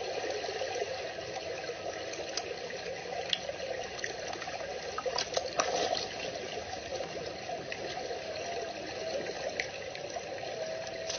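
Steady trickling, watery noise from the pond's edge, with a few faint clicks a few seconds in.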